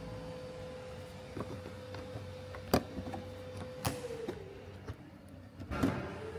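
Plastic pop clips being prised out of a trim panel with a pick: two sharp clicks about a second apart, with a few fainter ticks. A steady hum runs underneath, dipping in pitch for a moment near the end.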